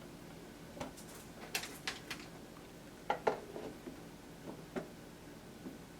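Scattered light clicks and knocks of kitchen utensils and a container being handled during food preparation, with the loudest pair about three seconds in.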